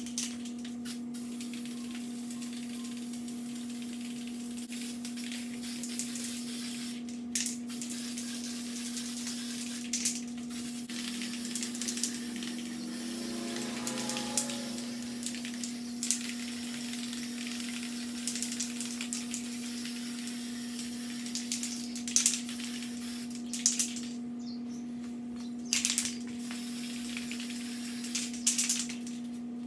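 Aerosol can of spray primer sprayed in short bursts, several times and mostly in the second half, over a steady low hum.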